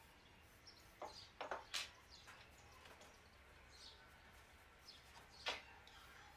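Near silence, with a few faint, brief high chirps, a cluster in the first two seconds and one more about five and a half seconds in.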